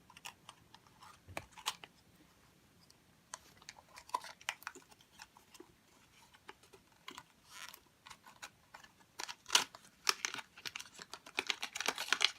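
Small plastic toys and packaging handled by hand: scattered light clicks and taps with some faint crinkling, coming thicker and faster over the last few seconds.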